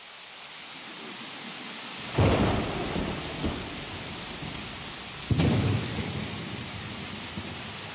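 Recording of a thunderstorm: steady rain, with a clap of thunder about two seconds in and another about five seconds in, each rumbling away over a second or so.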